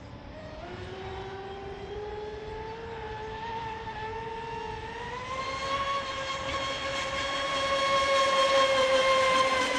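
Radio-controlled speedboat running fast on the water, its motor and flex-shaft drive giving a steady whine. The whine rises in pitch about five seconds in and grows louder toward the end.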